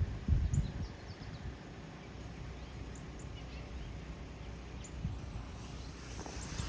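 Small songbirds chirping: many short, high chirps scattered throughout, over a steady low rumble.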